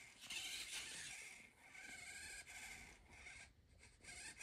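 Faint whirring of a robot dog's small motors, in four or five short spells of under a second each, as it turns and lifts its head.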